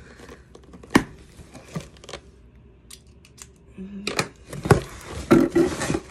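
Cardboard shipping box being opened by hand: a pen tip poking and slitting the packing tape with sharp clicks, the loudest about a second in, then the cardboard flaps being pulled open with louder scraping and rustling from about four seconds in.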